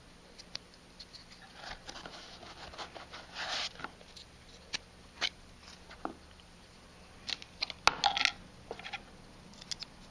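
Scattered clicks, taps and brief scraping of batteries being fitted into Sporlan wireless refrigerant pressure-sensor probes and their battery caps being put back on, with a sharp click about eight seconds in.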